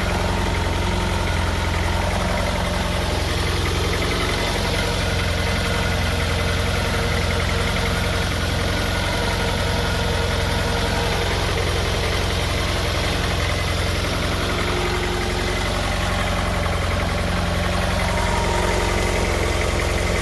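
1991 Honda Prelude Si four-cylinder engine idling roughly with an uneven brapping note, which the owner thinks is a misfire and wonders may come from a vacuum leak.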